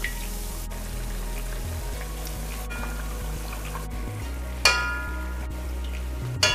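Pastries deep-frying in hot oil with a steady sizzle. Two sharp ringing clinks, about 4.5 seconds in and again near the end, as a metal slotted spoon strikes the aluminium pot while lifting them out.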